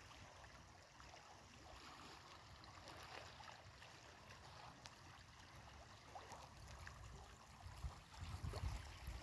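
Faint lapping of small lake waves against a stony, pebbly shore, with light scattered ticks of water on stones.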